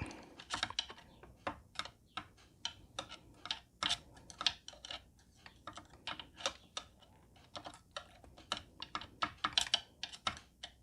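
Irregular light clicks and taps of small plastic parts being handled and fitted into a side mirror's folding-motor housing, several a second at times.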